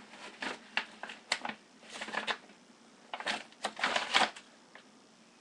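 Hands handling and unwrapping packaged baseball cards: irregular rustles and light plastic clicks in several short bursts, the loudest run of them about four seconds in.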